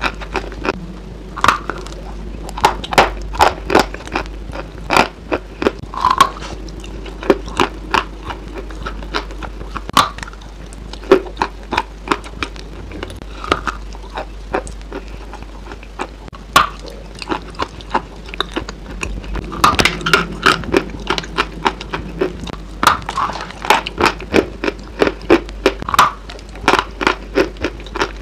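Close-miked biting and chewing of a crumbly white food, with irregular sharp crackles and crunches several times a second over a faint low hum.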